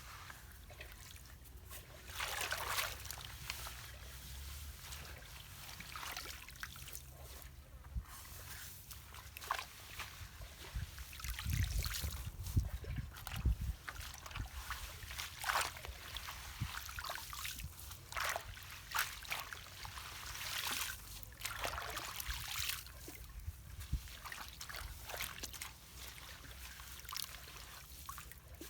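Water trickling and sloshing at a debris-clogged culvert, with irregular splashes. There are a few heavier low rumbles about halfway through.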